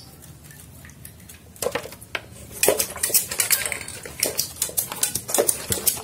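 Hand spray bottle squirting water onto a caged songbird in short sprays in quick succession, starting about a second and a half in.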